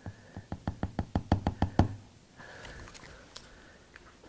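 A plastic bottle of carpenter's wood glue being shaken hard: about a dozen quick knocks in under two seconds, speeding up. Then softer rustling and a few small clicks as the bottle is handled in both hands.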